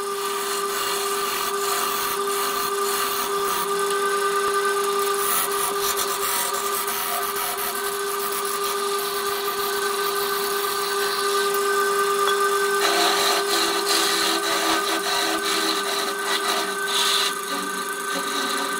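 Electric wood lathe running with a steady motor hum while a turning gouge cuts the spinning wooden bowl blank. The scraping hiss of the cut swells and eases as the tool is worked.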